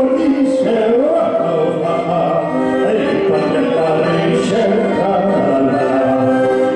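A man singing into a microphone over backing music.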